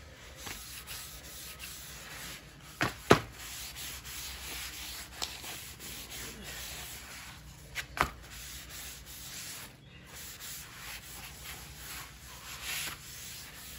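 A rag rubbing wood stain into a pressure-treated wooden block, a steady scrubbing. A few sharp knocks stand out about three seconds in and again at about eight seconds.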